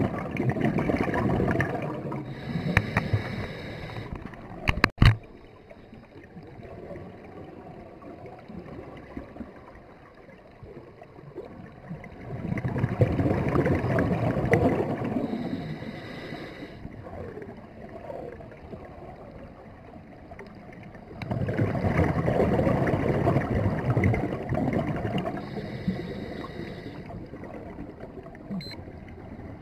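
Scuba breathing heard underwater: bubbles from a diver's exhalations through the regulator, coming in bursts of a few seconds, three times, with quieter stretches between. A sharp click about five seconds in.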